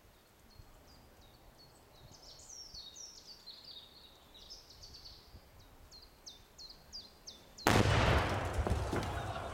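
Small birds chirping in short, falling calls, then, near the end, a sudden very loud explosion as a freezer is blown apart, with a deep rumble that dies away slowly.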